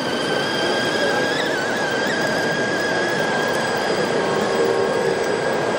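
Steady high-pitched whine of a radio-controlled model forklift's electric motor and gearbox as it tows a train of small loaded trailers, over a steady background din.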